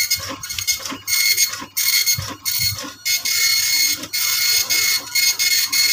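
Epson LQ-2190 dot matrix printer printing a Windows test page: the print head buzzes across the page in short bursts, line after line, with a longer unbroken run in the middle.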